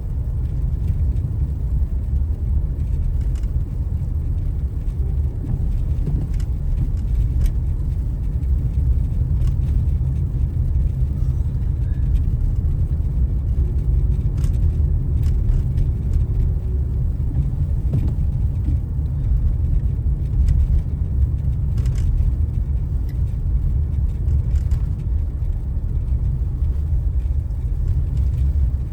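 Car driving on a snowy freeway, heard from inside the cabin: a steady low rumble of tyre and engine noise, with a few faint ticks scattered through it.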